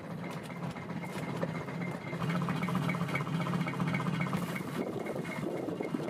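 An engine or motor running steadily with a low hum and a fine, even ticking.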